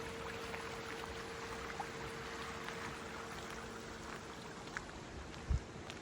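Steady rush of running water, with the lingering hum of a church bell fading out about four seconds in. A few light clicks of footsteps and one low thump near the end.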